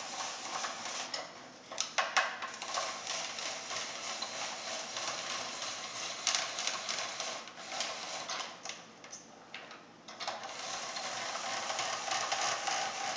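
Hand-cranked tabletop spiralizer cutting a zucchini into noodles: a steady run of fine clicks and scraping from the turning crank and blade, easing off briefly about a second and a half in and again around nine seconds.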